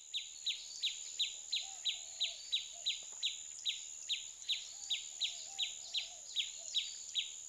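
Forest ambience: a small animal's chirp repeated rapidly and evenly, about three short downward-sweeping chirps a second, over a steady high whine, with faint warbling lower down.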